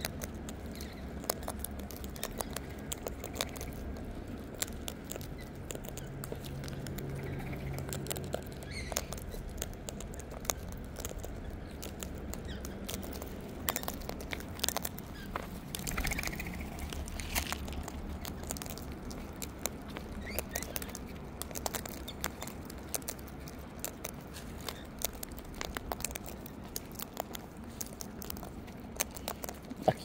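Sulphur-crested cockatoos cracking sunflower seeds and rummaging through a tray of seed mix: a continuous patter of small cracks, crunches and rustles.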